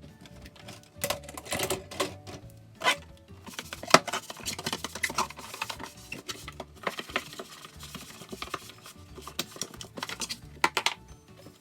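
Dishes and kitchen utensils clattering and knocking during washing-up and tidying: a rapid, irregular run of clicks and knocks, with a few seconds of steady hiss in the middle, over soft background music.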